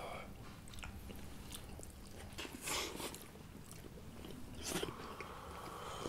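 Quiet eating sounds: chewing and hands pulling apart boiled mutton from a sheep's head, with a couple of brief soft noises.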